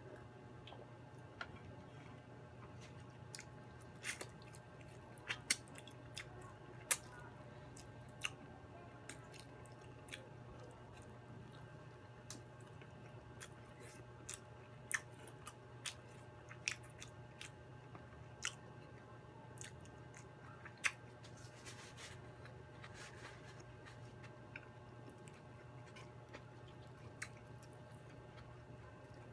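Close-miked chewing and mouth sounds of a person eating fried chicken and rice with dinuguan by hand, with many short sharp clicks and smacks scattered through it. A faint steady low hum runs underneath.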